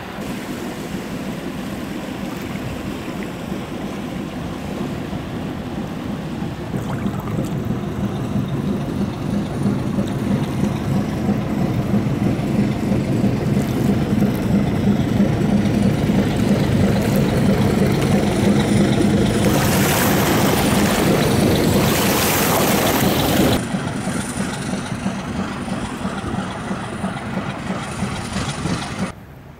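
Diesel engine of an inland barge convoy droning steadily as it passes close by, growing louder toward the middle. For a few seconds past the middle a rush of water from its wake joins in, then the sound drops sharply near the end.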